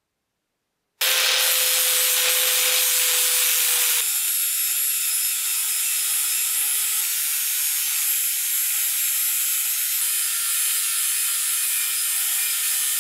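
Angle grinder with an abrasive disc grinding the rusty, pitted steel blade of an old cleaver to take out the pitting: a loud steady grinding hiss over the motor's constant whine. It starts about a second in and stops suddenly at the very end.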